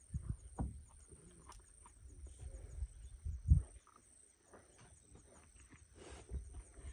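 Male cheetah feeding on a wildebeest carcass: irregular tearing, crunching and chewing sounds with dull low thumps, the loudest about three and a half seconds in.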